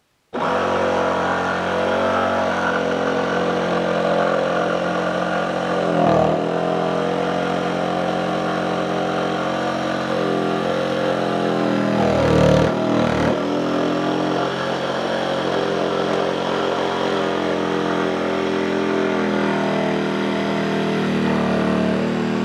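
DeWalt 20V XR cordless brushless jigsaw (DCS334) with its blade set to orbital action 1, running at speed as it saws through a thick wooden board along a curved line. It starts suddenly and holds a steady whine. Its pitch sags briefly about six seconds in and again around twelve to thirteen seconds as the motor bogs under load in the cut.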